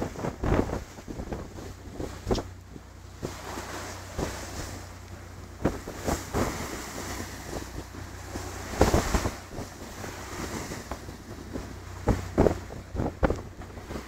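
Wind buffeting the microphone on the open deck of a boat in heavy seas, with the rush of waves and a steady low hum from the boat underneath. Sharp thumps and knocks come every second or few, loudest about halfway through.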